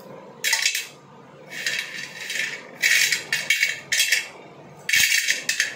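Pieces of slate pencil dropped into an iron kadai, clattering and clinking on the metal in four bursts, the longest a little after the middle.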